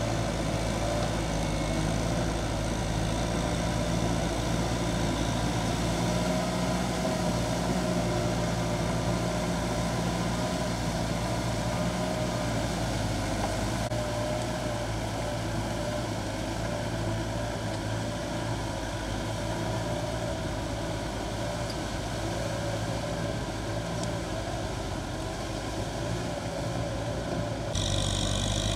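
Kubota M6040S tractor's diesel engine running steadily under load, pulling a rotary tiller through flooded paddy mud. About a second before the end the sound jumps to a closer, louder engine with an added high whine.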